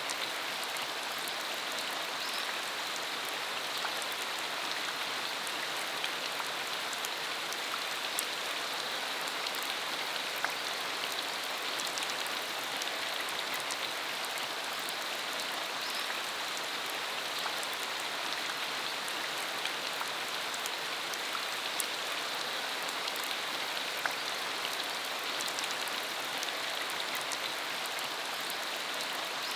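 Steady rain falling, a continuous hiss with many separate drops ticking sharply on the surface.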